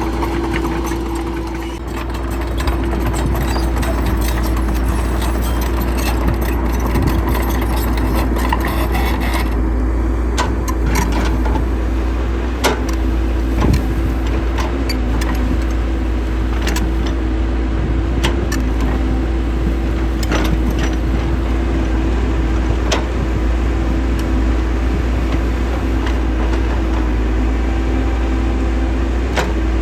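Diesel engine of a heavy construction machine running steadily with a deep rumble and a constant hum, with scattered sharp metallic clanks and knocks.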